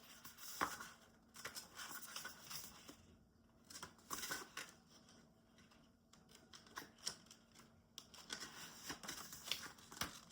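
Faint, irregular rustling and light clicks of paper and cards being handled, as someone leafs through to find a particular card's entry.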